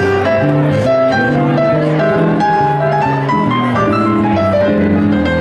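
Instrumental background music: a piano melody over sustained chords, at a steady loud level.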